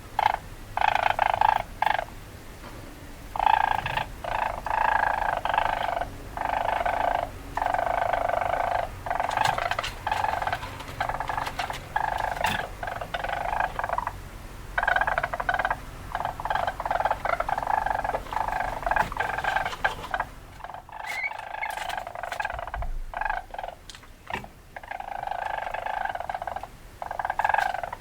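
Weasel calls: a string of rapid chattering bursts, each a second or two long, repeating with short breaks and a longer lull a little after the middle.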